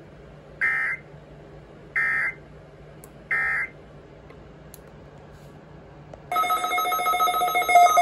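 Three short digital screeches about a second and a half apart: the SAME header bursts of a NOAA Weather Radio test, coming through the receivers' speakers. About six seconds in, several weather radio receivers start sounding their alert alarms together, a loud layered beeping of several steady tones.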